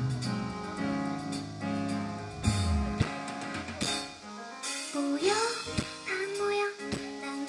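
Live pop band music: sustained keyboard chords over bass and drum hits, the bass dropping away about three seconds in. About five seconds in, a woman's singing voice comes in over the accompaniment.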